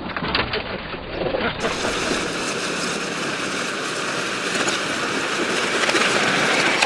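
Train running on rails: a steady rattling noise with scattered clicks, growing fuller about a second and a half in.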